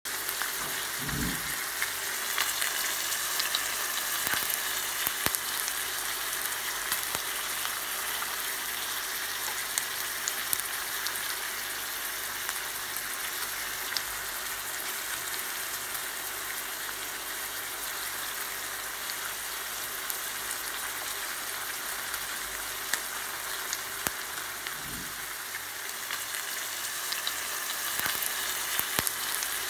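Bone-in beef steak frying in a hot stainless steel pan: a steady sizzle of fat and juices with frequent small crackles and spits.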